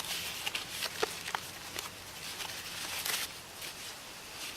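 Containers of leftover food being handled and opened: several sharp clicks and taps, then a brief rustle about three seconds in.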